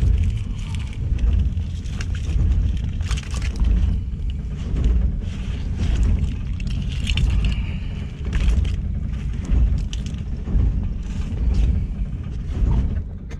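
Low, uneven rumble aboard a small fishing boat, with scattered clicks and rattles of shells, crabs and debris being sorted by hand on the wet deck.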